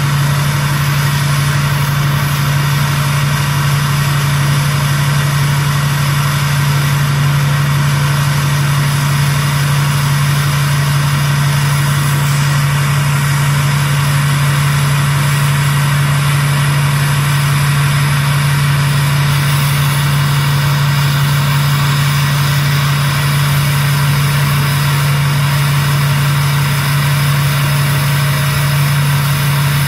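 2006 GMC pickup's LBZ Duramax 6.6-litre V8 turbodiesel idling steadily, heard at the exhaust tip, still running cold shortly after a cold start.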